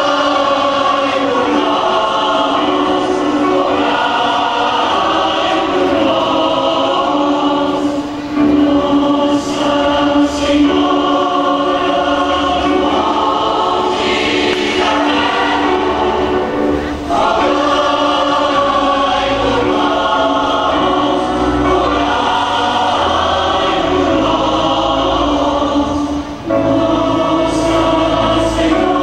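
Choir singing a hymn in long, held phrases, with brief pauses between phrases about a third and two thirds of the way through and again near the end.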